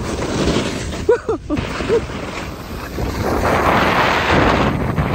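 Wind noise on a phone microphone while skiing, with the noise swelling over the last couple of seconds. About a second in, three or four short rising-and-falling pitched sounds break through.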